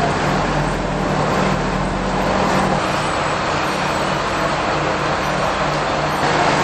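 Diesel railcar's engine idling steadily, a low hum under a continuous noisy wash; the lowest part of the hum drops away about three seconds in.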